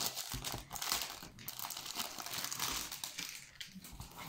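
Clear plastic wrapping and the rolled diamond-painting canvas inside it crinkling irregularly as it is handled and unrolled by hand.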